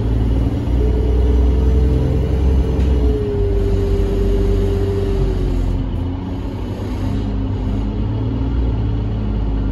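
Alexander Dennis Enviro300 single-deck bus heard from inside the saloon while driving: a heavy, steady engine and road rumble, with a steady whine that comes in about a second in, drops a little in pitch and fades out a few seconds later.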